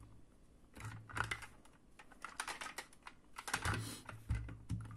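Small, scattered plastic clicks and taps in short clusters as a toy figure is pressed into the seat of a plastic toy car and the car is handled, with a few dull knocks of the car against the table.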